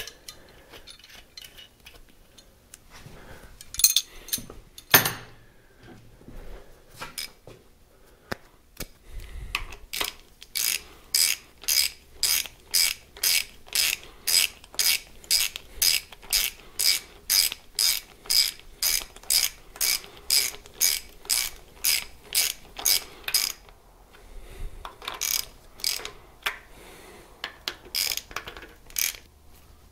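Hand socket ratchet clicking as fasteners are run down on the cylinder head studs of an Isuzu 4BD1T diesel, in even strokes about two a second for over ten seconds in the middle. A few sharp metal clinks come before, and a few more ratchet strokes near the end.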